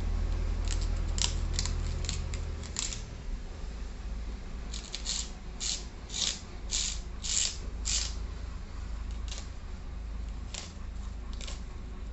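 Plastic stretch wrap on a new motorcycle tyre being slit and torn with a utility knife: short, sharp crinkling rips, about two a second in two runs, thinning out near the end, over a low steady rumble.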